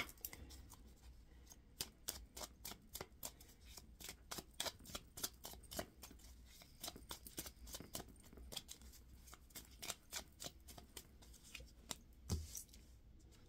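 A tarot deck shuffled by hand: a long run of soft, irregular card clicks and slaps. Near the end there is a single low thump as a card is set down on the board.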